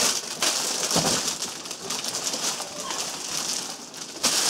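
Clear plastic bag crinkling and rustling as a carrying case wrapped in it is handled, a dense, continuous crackle.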